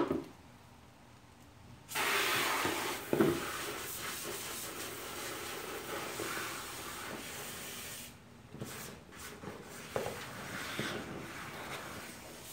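Water hissing from a garden hose: the spray starts suddenly about two seconds in, runs on, and turns lower and more uneven after about eight seconds. A sharp knock comes right at the start.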